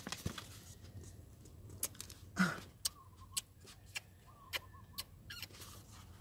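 Paperback book being handled and its pages flipped: scattered faint clicks and rustles, with a fuller rustle about two and a half seconds in. A faint wavering tone comes twice in the middle.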